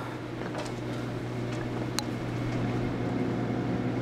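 Steady low machine hum with one sharp click about two seconds in.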